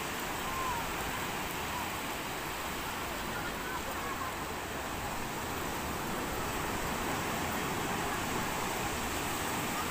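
Steady wash of surf breaking and running up a sandy beach.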